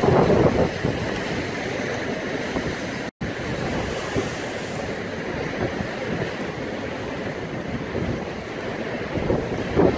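Heavy storm surf pounding and breaking against a harbour sea wall, with wind buffeting the microphone. The sound cuts out for a split second about three seconds in.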